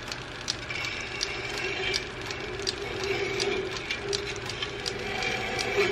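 Metal lathe running while a hacksaw blade is held against the spinning steel drill shank to cut it off, the blade ticking about three times a second over the lathe's steady whine.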